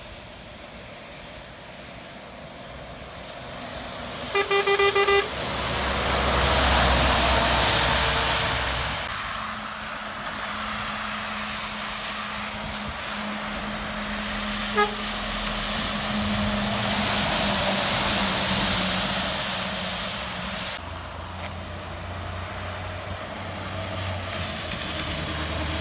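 A vehicle horn toots about four times in quick succession, then traffic passes on a wet road: a tyre hiss swells and fades twice, with a steady engine hum underneath in the second half.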